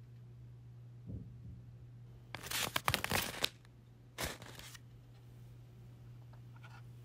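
Sheets of paper being handled and flipped: two bursts of crinkly rustling, the first about a second long, the second shorter, with a soft thump about a second in. A steady low hum runs underneath.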